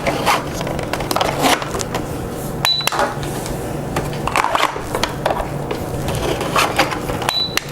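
Toy electronic cash register beeping twice, short high beeps about four and a half seconds apart, among clicks and knocks of plastic toy items being handled.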